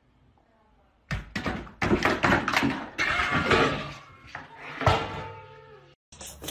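A series of sudden thumps and knocks starting about a second in, mixed with short pitched calls.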